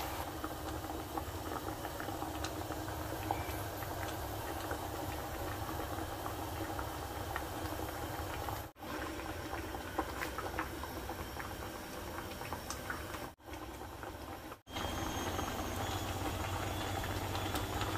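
Soup broth boiling hard in a pan: steady bubbling with small pops and crackles. It briefly cuts out about nine seconds in and twice more a little later.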